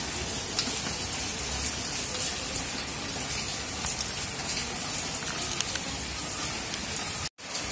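Steady rain hiss with faint scattered crackles, cutting out for a moment near the end.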